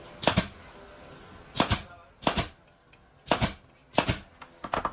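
A nail gun (brad nailer) firing six times, driving nails through a wooden drawer front into the drawer box: each shot a sharp double snap, spaced irregularly about a second apart.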